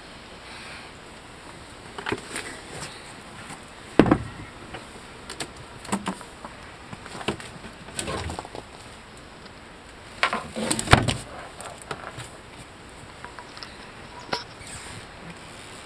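Irregular knocks and bumps from handling the camera and moving about the boat's deck, over a low steady hiss. The loudest knock comes about four seconds in, and a cluster of knocks comes around ten to eleven seconds in.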